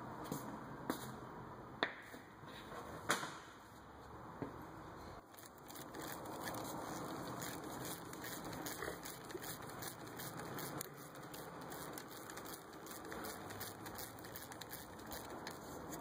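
Gloved hands handling and threading a brake hose banjo bolt and its washers into a brake caliper: scattered light metal clicks and rubbing, with a few sharper clicks in the first few seconds and many small ones later on.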